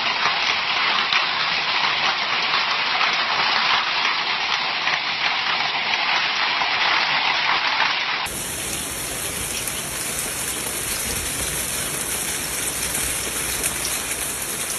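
Heavy rain pouring down in a steady hiss, changing abruptly about eight seconds in as one recording cuts to another.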